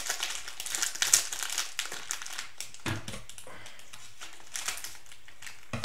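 Plastic wrapper of a Panini Prizm cello pack of trading cards crinkling as it is handled and opened. The crinkling is dense through the first couple of seconds, then comes in sparser bursts.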